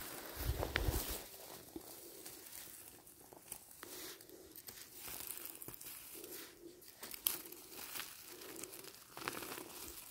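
Irregular close rustling and crackling with scattered sharp clicks, and a low thump about half a second in.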